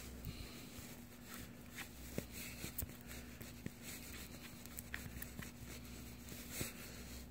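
Scattered small clicks and scrapes of a tool stirring two-part epoxy, over a steady low electrical hum.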